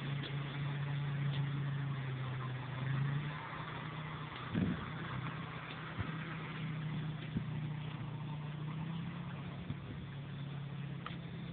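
Car engine running with a steady low hum over road noise, with a single thump about four and a half seconds in.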